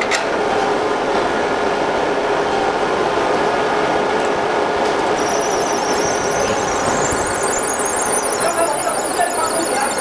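Fiber laser engraving machine running with a steady noise and fixed high-pitched whining tones. A higher, warbling squeal joins about halfway through.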